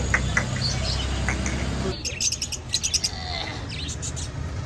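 Small caged birds chirping busily, with many quick high calls, starting about two seconds in. Before that there is a low steady hum with faint regular ticks.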